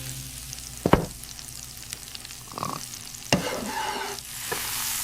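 Food sizzling as it fries in a hot pan, with two sharp clinks, about a second in and again a little after three seconds.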